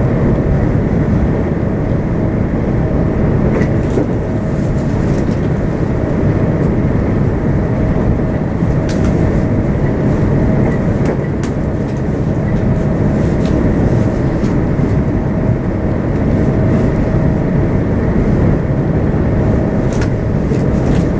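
c2c electric passenger train running along the track: a steady rumble with a thin constant whine, and a few sharp clicks now and then.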